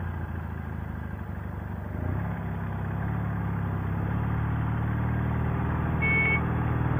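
Sidecar motorcycle engine running under way in traffic, pulling harder from about two seconds in. A short, high beep sounds about six seconds in.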